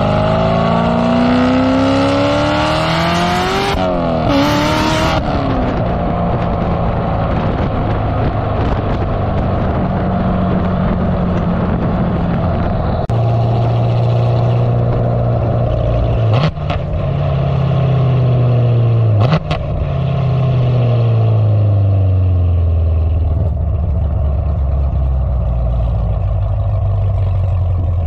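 C7 Corvette Z06's supercharged LT4 V8 exhaust, through long-tube headers and a catted X-pipe, accelerating with rising pitch, dropping at a gear change about four seconds in, then cruising. Two short sharp cracks come mid-way, then the pitch falls as the car slows and settles to a low steady note near the end.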